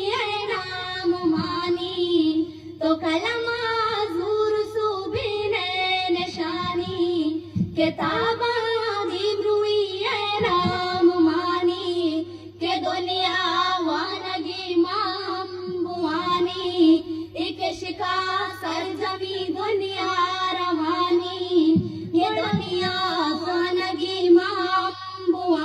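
A girl singing solo into a microphone, unaccompanied, with long, wavering held notes and short pauses for breath. The song is in Balochi, in praise of Balochistan.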